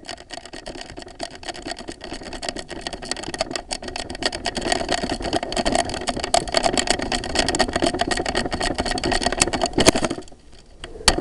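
Airsoft rifle mechanism running in a long stretch of rapid clicking over a steady motor-like whir. It stops abruptly about ten seconds in, and one or two sharp clicks follow near the end.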